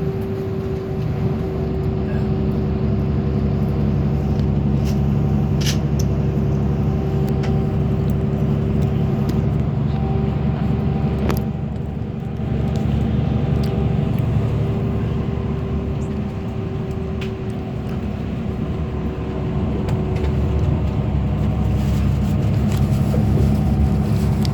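Inside an intercity coach bus under way: a steady drone of engine and road noise with a low hum, and a few faint clicks.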